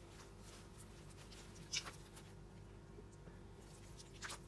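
Faint handling noises of a plastic-gloved hand moving a wet, rubber-banded black T-shirt in a stainless steel bowl: quiet rustling with two short sharp ticks, one about two seconds in and one near the end, over a low steady hum.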